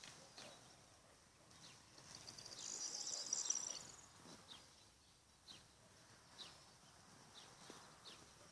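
Faint songbirds singing in open farmland: scattered short, high, down-sweeping chirps, with a louder high trilling phrase from about two and a half to four seconds in.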